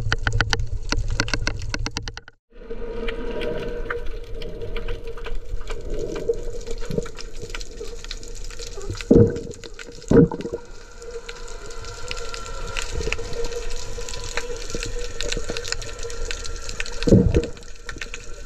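Underwater sound picked up by a camera in the sea: first a fast, even train of clicks, then after a break a steady hum with three short, loud low sounds about 9, 10 and 17 seconds in.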